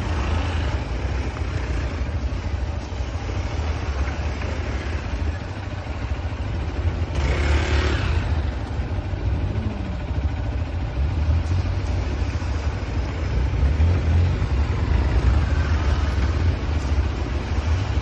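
Hero Xpulse 200 single-cylinder dual-sport motorcycles riding through a shallow stream crossing, engines running and revving over a steady low rumble, with a louder surge of revving about seven seconds in.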